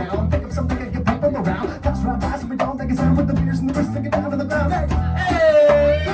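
Live band playing an upbeat song: a steady drum beat over bass and guitar. About five seconds in, a voice holds a long note that bends downward.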